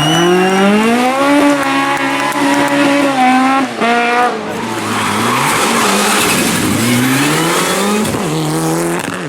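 Rally car engine revving hard: its pitch climbs at the start, holds and jumps with a gear change about four seconds in. Tyres squeal and slide for a couple of seconds after that, then the engine note falls as the driver lifts off and rises again near the end.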